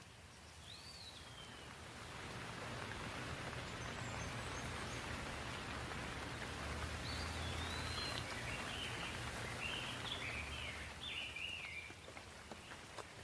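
Steady rain that swells about two seconds in and eases near the end, with birds chirping over it: one call about a second in and a run of short chirps in the second half.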